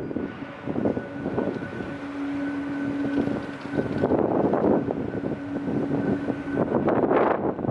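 Strong gusty wind buffeting the microphone in repeated bursts, over a steady hum from jet airliner engines.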